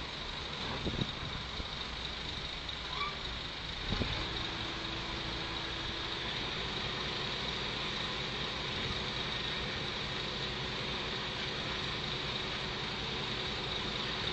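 Diesel engine of an old crawler piling rig running steadily as the machine climbs onto a low-loader trailer, with a single knock about four seconds in.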